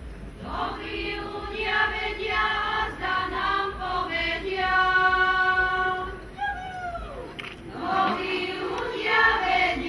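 Slovak women's folk singing group singing a folk song together, unaccompanied, in held phrases. About six seconds in the singing breaks briefly, with a voice sliding down in pitch before the group comes back in.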